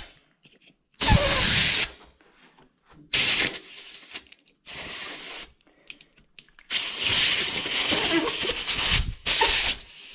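Compressed-air blowgun hissing in short blasts into the open end of a bicycle handlebar, forcing air under the rubber grip to blow it loose. Four blasts with gaps between them, the last one the longest at about three seconds.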